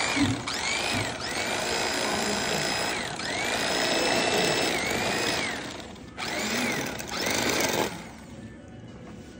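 Electric carving knife running, a buzzing motor whine whose pitch dips and recovers as the blades saw through the fried turkey meat. It stops about six seconds in, runs again for under two seconds, then stops.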